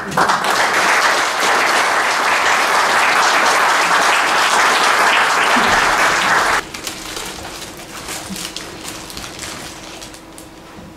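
Congregation applauding, the clapping cutting off suddenly about six and a half seconds in.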